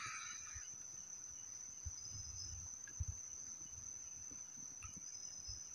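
Night insects, crickets by the sound of it, singing one steady, unbroken high trill, with a few faint low knocks about two and three seconds in.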